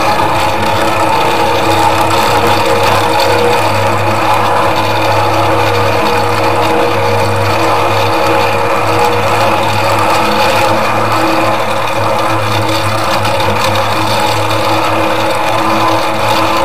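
Miniature ride-on park train running steadily along its track: the locomotive's drive gives a continuous mechanical hum and whine.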